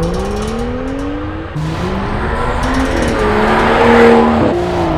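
BMW 335i's turbocharged N55 straight-six, exhaust opened up by a muffler delete, accelerating hard: the engine note climbs, drops at an upshift, then climbs and drops at a second upshift near the end.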